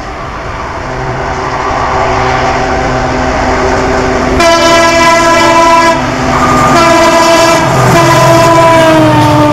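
WDP 4B diesel-electric locomotive approaching with its engine rumble growing louder, then sounding its horn in three blasts from about halfway in, the last one dropping in pitch as the locomotive passes.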